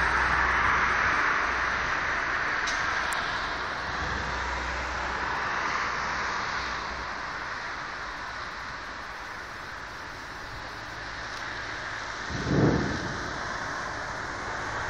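Storm wind rushing through trees, a steady noise that eases off midway and builds again. A short low blast of wind buffets the phone's microphone near the end.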